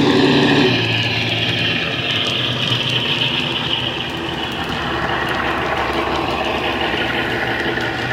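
Model Class 52 Western diesel-hydraulic's DCC sound decoder playing its engine sound through an EM2 speaker as the loco passes. A louder steady note drops away about a second in, leaving an even engine drone.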